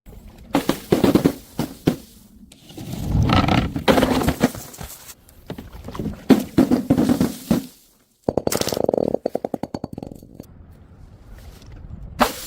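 Objects being crushed and dropped: a string of crunches, knocks and scrapes, with a fast run of rattling clicks about eight seconds in.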